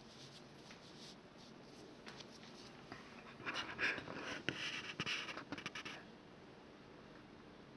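Heavy metal ship's-wheel fidget spinner spinning on its centre bearing: a dry, scratchy whir with small clicks that lasts a few seconds and cuts off about six seconds in.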